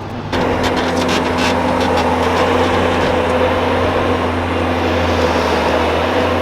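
An engine running loud and steady, coming in sharply about a third of a second in, with a few sharp clicks or scrapes in the first second and a half.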